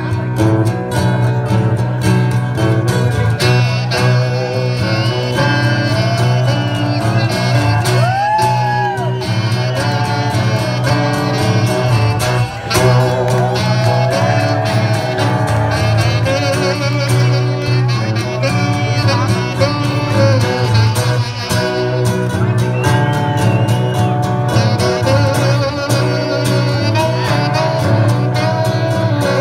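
Live band of acoustic guitar, electric guitar and alto saxophone playing, with the saxophone carrying a gliding melody over the strummed guitars.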